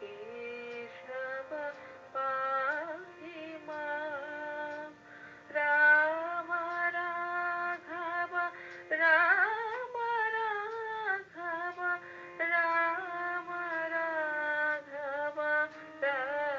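A woman singing a slow melody, holding long notes with a wavering vibrato and gliding between pitches.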